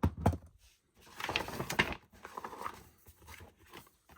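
Blu-ray case and its paper artwork sleeve being handled: a sharp click right at the start, then rustling with scattered clicks and knocks that die down toward the end.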